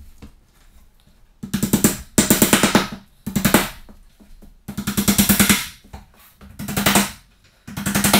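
A hammer striking the edge of a wooden barn door, in six quick runs of rapid blows with a short ring on each.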